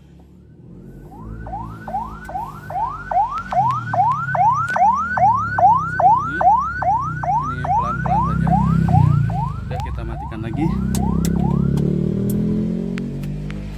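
Ambulance electronic siren sounding a fast yelp: a train of rising sweeps, each cut off sharply, nearly three a second, stopping about eleven seconds in. A low rumble runs underneath, louder near the end.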